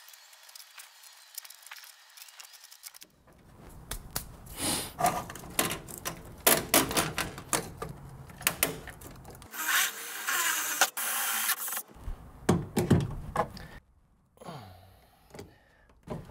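Hands working plastic corrugated wire loom and wiring into a van's rear door frame: scattered clicks, taps and rustling, quiet for the first few seconds and then busier.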